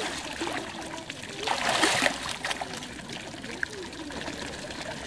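Capybara rolling over backwards in shallow pond water: water sloshing and trickling off its body, with one louder splash about a second and a half in.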